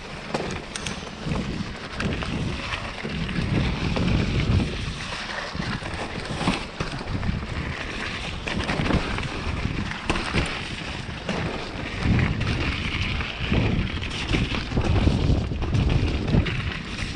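Wind buffeting the microphone of a mountain bike ride downhill, with tyres rolling over dirt and snow and scattered knocks and rattles from the bike over the rough trail.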